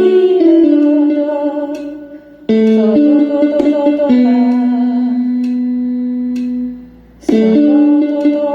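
Female voice singing a slow melody in long held notes, with a new phrase starting about two and a half seconds in and another near the end.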